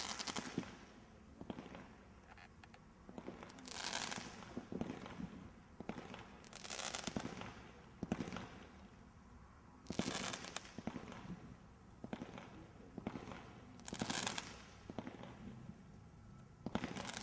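Category 2 combination roman candle (Taser Boy, 36 shots) firing shot after shot, about every three to four seconds. Each shot is a sharp thump followed by about a second of hiss.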